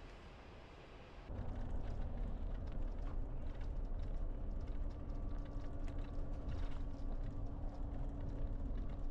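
A vehicle's steady low rumble with a constant hum, starting suddenly about a second in.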